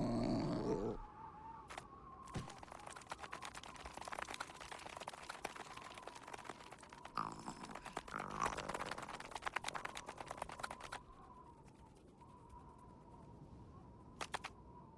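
Cartoon insect sound effects: a short growly grumble from a group of ants about a second long, then a long run of rapid tiny clicks as ants scurry across snow, stopping about eleven seconds in. A brief burst of the same quick clicks comes near the end.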